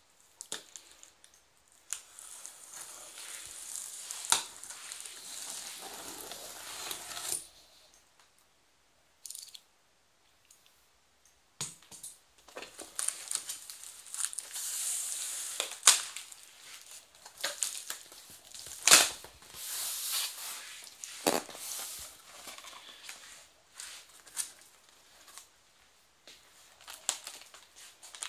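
A cardboard TV carton being opened and unpacked by hand. A blade scrapes along the packing tape, then cardboard and polystyrene packing are handled with rustling, scraping and several sharp knocks, the loudest about two-thirds of the way through.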